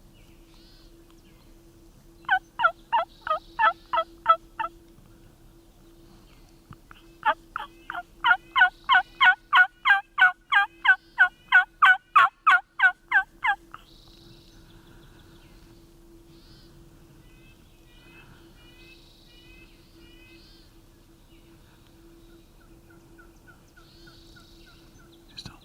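Two runs of loud turkey yelps: about nine evenly spaced notes, a short pause, then a longer run of about twenty, at three to four notes a second. Faint small-bird chirps come in between.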